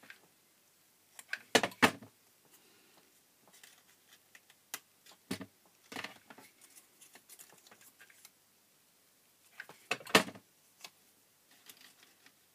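Hands handling paper flower petals and small craft tools on a cutting mat: scattered clicks, taps and light paper rustles, with the loudest knocks about two seconds in and again about ten seconds in.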